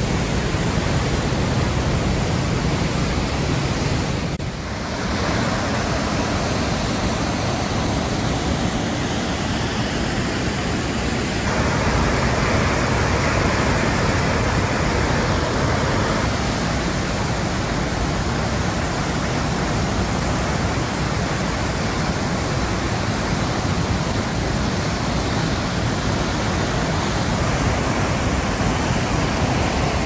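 Steady rushing roar of a large waterfall crashing into its plunge pool. The roar dips briefly about four seconds in and grows brighter from about twelve seconds on.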